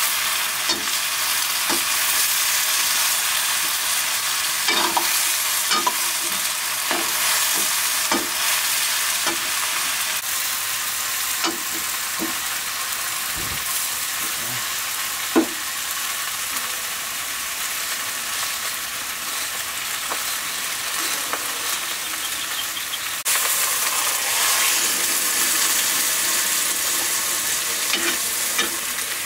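Sliced green vegetables and meat frying with a steady sizzle in a black iron wok over a wood fire. A metal ladle scrapes and knocks against the pan now and then as the food is stirred, most often in the first half.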